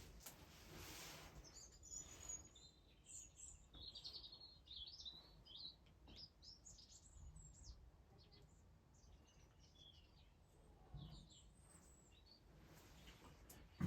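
Faint birdsong: many short, high chirps and trills, busiest in the first two-thirds and thinning out towards the end.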